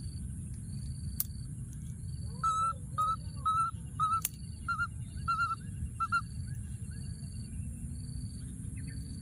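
Baby monkey calling: a run of about eight short, clear, high-pitched calls, roughly two a second, starting a couple of seconds in and stopping a little past the middle. A regular high insect chirp about once a second and a low rumble continue behind.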